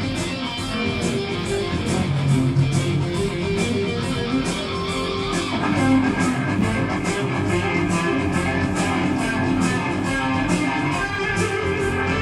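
A heavy metal band playing live: electric guitars over bass and drums, with cymbal hits keeping a steady beat about two or three times a second.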